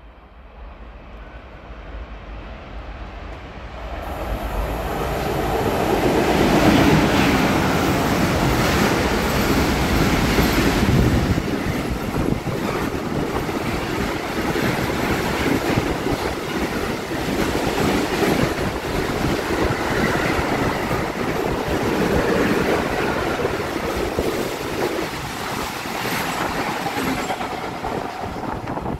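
Container freight train passing through on the near track: the sound builds over the first few seconds to a heavy rumble that is loudest from about five to eleven seconds in, then holds as a steady rumble with a rapid run of wheel clicks as the container wagons go by, easing off near the end.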